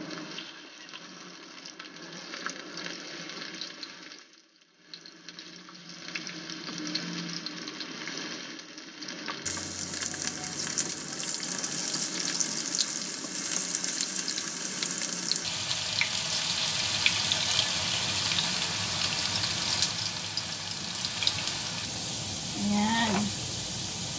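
Potato slices sizzling as they shallow-fry in hot oil in a nonstick pan, with a spatula turning them now and then. The sizzle grows louder about ten seconds in.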